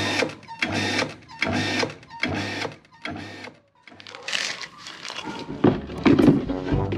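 Hitachi WM-P 350GX automatic water pump short-cycling: the motor starts and stops in short bursts about once a second instead of running steadily. The owner puts this down to the nitrogen pressure tank having lost its charge. A few sharp knocks come near the end.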